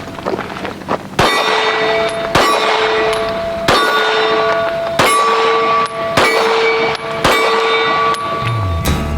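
Pistol shots fired one-handed at steel targets, about six spaced a little over a second apart, each followed by the ringing of the struck steel plate.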